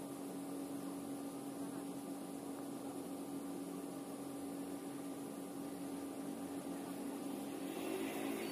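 Steady machine drone with one constant low tone over a light even hiss, swelling slightly near the end.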